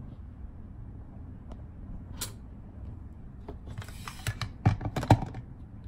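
A run of light plastic clicks and knocks as the lid of a small blender is fitted onto its jar, loudest a little before the end.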